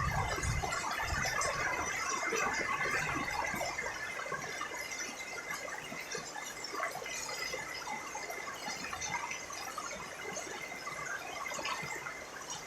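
Rain falling and pattering, with a steady, thin high-pitched whine running through it that fades out near the end.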